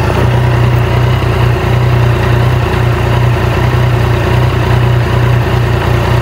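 Motorcycle engine idling steadily, a loud low hum that wavers evenly.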